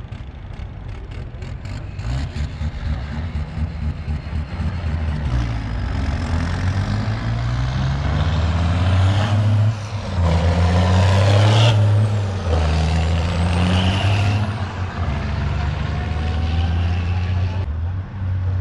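Heavy diesel truck engine running and revving, growing louder, with a loud burst of air hiss about ten seconds in.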